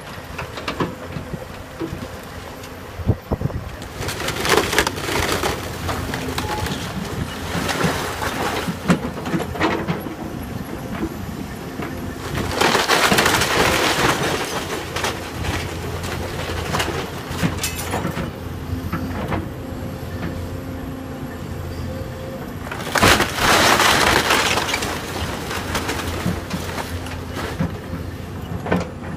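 Hyundai 160LC tracked excavator running steadily while its bucket breaks up and drags through piles of wooden house debris, with loud bursts of splintering and crunching about four, thirteen and twenty-three seconds in, and scattered knocks of timber in between.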